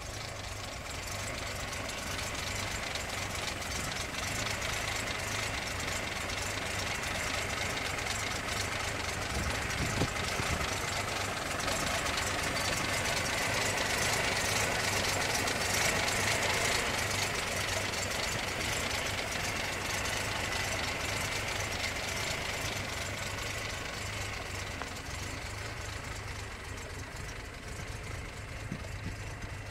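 A 1936 Rolls-Royce engine idling steadily. It grows louder for a while in the middle, then eases off again.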